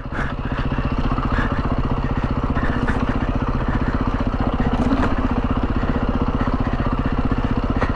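Beta 350 RR four-stroke single-cylinder dirt bike engine running steadily under way, its note lifting briefly about halfway through.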